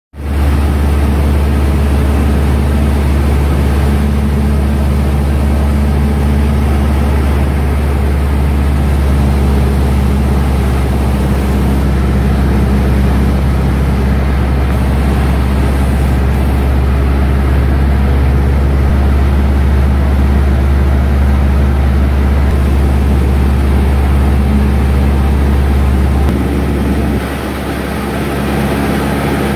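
Cessna 150's Continental O-200 four-cylinder engine and propeller droning steadily at approach power, heard inside the small cabin with wind noise over the airframe. The sound cuts in suddenly at the start and dips briefly near the end.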